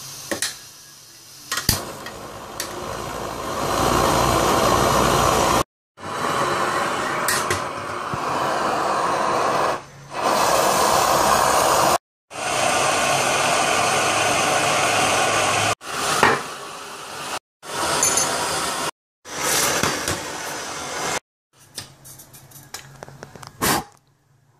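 Soviet 'Breżniewka' (Prymus) petrol camping stove, a copy of the Optimus Hunter, burning with a steady loud hiss under a pot of water. The sound comes in several stretches that cut off suddenly, with sharp metal clinks and knocks from handling the stove and pot in between.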